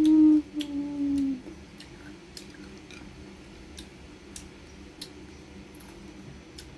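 A woman's closed-mouth "mmm" hum of enjoyment while eating, one long note slowly falling in pitch, ending about a second and a half in. After it, quiet chewing of dried anchovies with scattered faint clicks.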